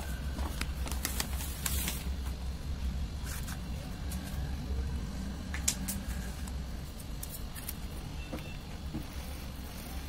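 Plastic bag of detergent powder handled and tipped into a plastic cup: scattered crinkles and sharp clicks, most of them in the first two seconds, with a few more later. A steady low hum runs underneath.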